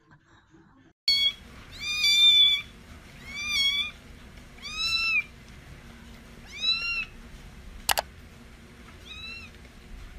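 Kitten meowing repeatedly, starting about a second in: about six high-pitched, arching mews, the second one longest. A single sharp click comes about eight seconds in.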